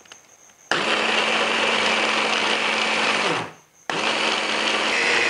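Electric mini chopper (a stick-blender motor on a chopping bowl) running in two bursts, whirring its blades through garlic, chillies and coriander root with liquid into a paste. The first burst lasts under three seconds and drops in pitch as the motor winds down. The second starts about half a second later.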